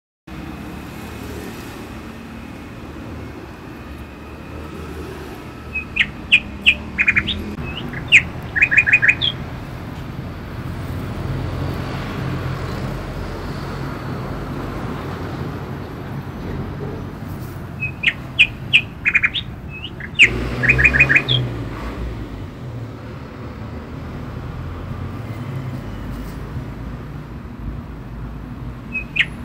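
A bird calling in quick runs of sharp chirps, two bursts of several seconds each, over a steady low rumble.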